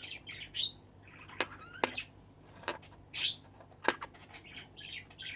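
A bird chirping in short, scattered high chirps and squawks, with a few sharp clicks in between.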